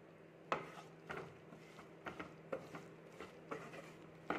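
Wooden spatula stirring okra in a non-stick frying pan, knocking and scraping against the pan about eight times at an uneven pace, over a faint steady hum. The sharpest knocks come about half a second in and near the end.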